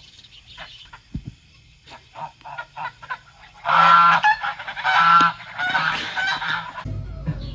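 A farm bird calling: soft short calls at first, then three loud runs of repeated calls starting about three and a half seconds in.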